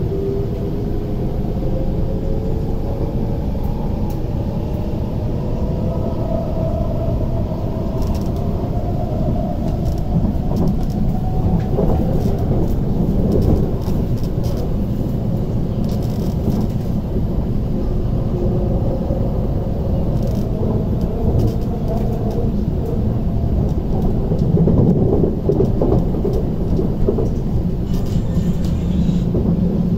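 Inside an MTR East Rail Line SP1900 (IKK-train) electric multiple unit on the move. The traction motors' whine rises steadily in pitch over roughly the first twelve seconds as the train accelerates. Underneath is a continuous rumble of wheels on rail, with scattered faint clicks.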